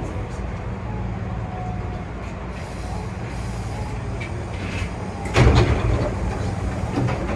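Hankyu 8000 series electric train standing still, a steady low hum from its equipment. About five and a half seconds in comes a sudden, loud, short burst of noise.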